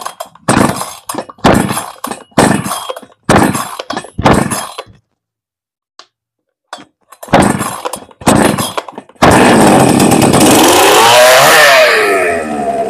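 West 628 two-stroke chainsaw, new and freshly fuelled, pull-started on choke for its first start: about eight yanks of the starter cord, then it catches about nine seconds in and runs loudly, revving up and down.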